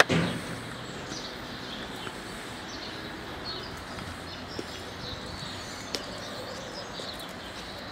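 Steady outdoor background noise with small birds chirping now and then. A short thump right at the start.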